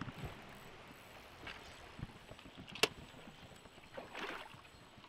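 Water lapping lightly against a boat's hull, with one sharp click a little under three seconds in and a brief splash about four seconds in.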